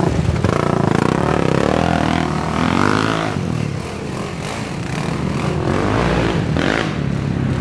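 Big-bore racing quad (ATV) engines revving hard on the throttle as the quads climb a dirt trail and pass close by one after another. The pitch rises and falls as each rider works the throttle.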